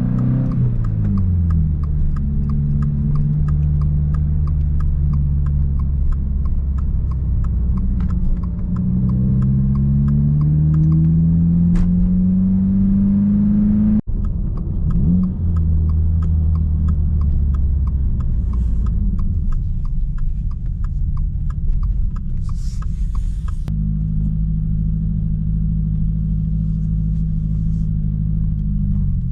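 Subaru WRX's turbocharged flat-four engine running while the car is driven, its pitch climbing as it accelerates and falling back at the shifts, over a steady road rumble. The sound breaks off abruptly twice, at edits.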